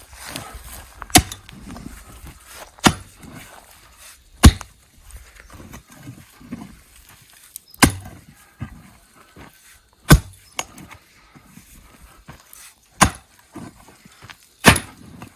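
A hand digging tool striking hard clay soil over and over, digging a fence-post hole: about seven sharp blows, a second and a half to three seconds apart, with softer scraping and shifting between them.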